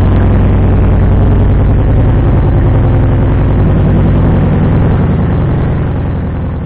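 Kawasaki Vulcan Voyager's V-twin engine idling steadily through newly fitted aftermarket Dracul slip-on exhaust pipes, fading out near the end.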